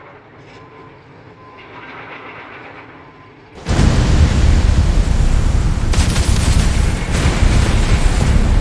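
Excavator loading a dump truck: a quiet stretch with a faint steady hum, then, about three and a half seconds in, a loud heavy rumble and clatter that starts abruptly.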